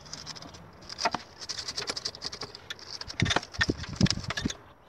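Wire brush scrubbing back and forth on a corroded coolant tube at the water pump: rapid, irregular scratching strokes that start about a second in and grow louder near the end. The tube is seized and is being cleaned so it can be disconnected.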